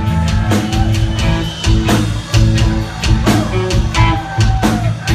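Live rock band playing loudly: drums hitting a steady beat under sustained bass and guitar.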